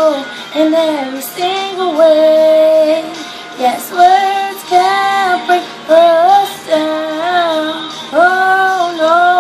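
A young girl's solo voice singing unaccompanied: a string of held notes, some sliding and wavering in pitch, without clear words.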